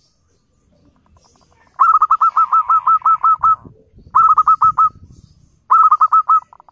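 Zebra dove (perkutut) calling in three quick runs of short, clipped cooing notes. The first run has about ten notes, and two shorter runs of five or six follow.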